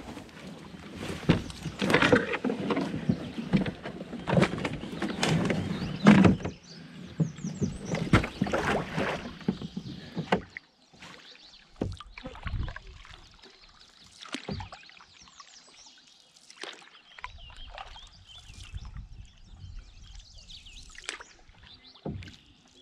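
A canoe being pushed off a shore of sticks and boarded: loud rustling, scraping and knocking for the first several seconds. Later come quiet, separate canoe paddle strokes and drips on calm water, one every second or two.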